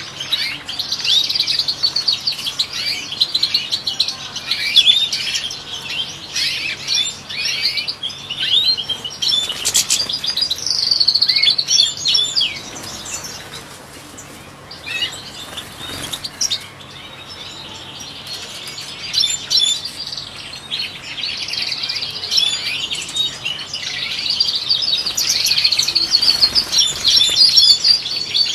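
European goldfinches singing, a fast tumbling twitter of high chirps, with a quieter stretch about halfway through before the song thickens again.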